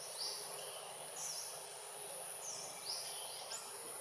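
Outdoor woodland ambience: a steady, high insect drone with short, high, swooping chirps repeating about once a second over it.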